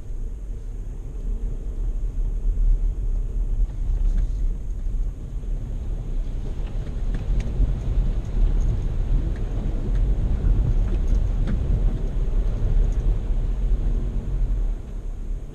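VW Amarok 2.0 BiTDI twin-turbo diesel pickup driving off-road over rough ground: a steady low rumble of engine and tyres, with scattered light knocks and clicks from about four seconds in.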